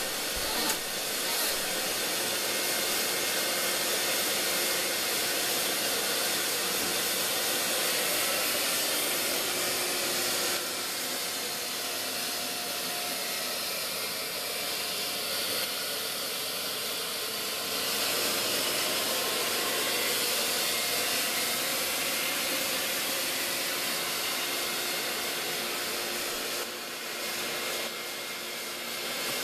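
Canister vacuum cleaner running steadily, pulling air through a long suction hose of a cyclonic dust-extraction setup: a continuous airy rush with a faint steady whine.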